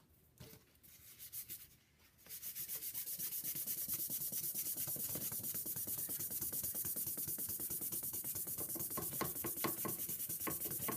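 A cane clarinet reed blank rubbed by hand on sandpaper over flat glass, sanding it flat: quick, even back-and-forth rasping strokes that start about two seconds in.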